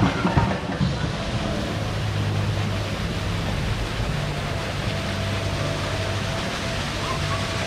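Artificial waterfall pouring down rockwork, a steady rush of water with a low hum underneath; a few knocks in the first second.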